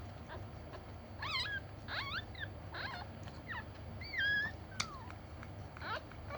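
Dog whimpering: a series of short, high-pitched whines, each rising and falling in pitch, about one a second.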